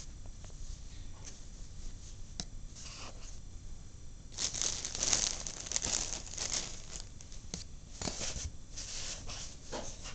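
Rustling and scraping of close handling: a few faint clicks, then from about four seconds in irregular bursts of papery, tearing-like rustling.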